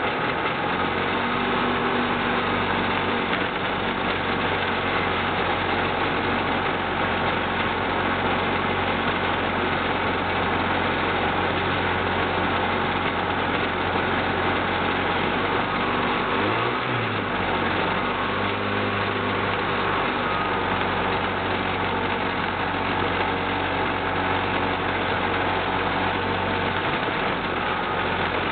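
Hi-MAX ultralight aircraft's engine and propeller running steadily while taxiing, heard up close. The engine speed changes briefly about seventeen seconds in, then settles again.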